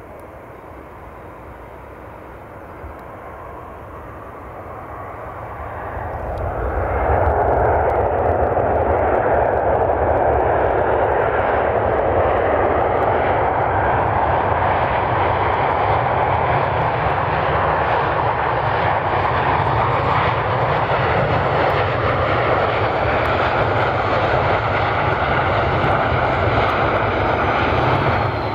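Boeing 717's two Rolls-Royce BR715 turbofans on the landing rollout just after touchdown: a steady jet rush that swells about six seconds in and stays loud as the airliner decelerates along the runway, then falls away near the end.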